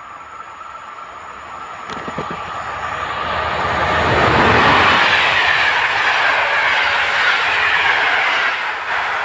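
Electric locomotive hauling PKP Intercity passenger coaches approaching and passing: the noise builds to its loudest about four and a half seconds in as the locomotive goes by, then the coaches roll past with steady wheel-on-rail clatter.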